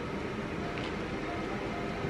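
Steady whirring hum of a running air fryer's fan, with a faint light click about a second in.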